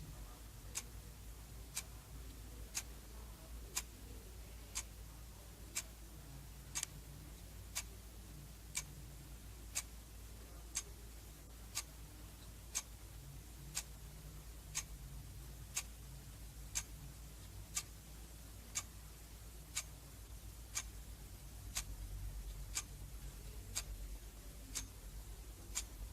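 Old mechanical alarm clock ticking steadily, one sharp tick about every second.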